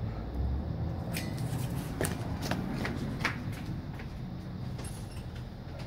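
Gloved hands handling a small plastic fuel-filter sensor: a scatter of light clicks and rustles at irregular intervals, most of them in the first half, over a low steady background hum.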